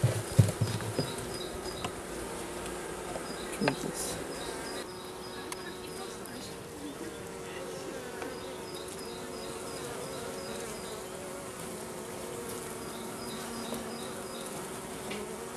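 Honeybees buzzing at a wooden hive: a steady hum that wavers slightly in pitch. There are a few knocks in the first second, and a rapid run of short high ticks comes and goes several times.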